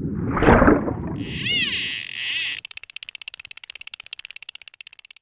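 Edited intro sound effects: a whoosh about half a second in, then a shimmering high sweep, then a rapid stuttering buzz of many short pulses a second that cuts off abruptly.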